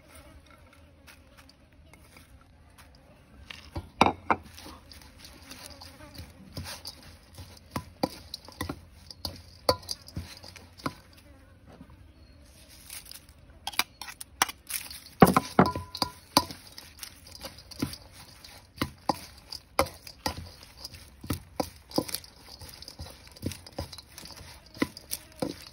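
Metal spoon clinking and scraping against a stainless steel mixing bowl as minced pork and fresh herbs are tossed together, in irregular clicks and knocks that start a few seconds in.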